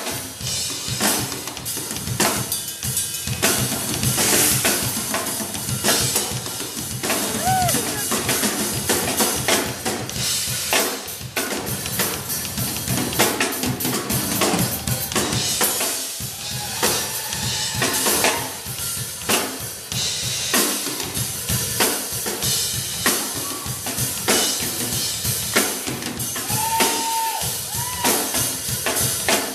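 Acoustic drum kits played in a drum battle: fast, dense beats and fills without a pause, with cymbals ringing over the drums.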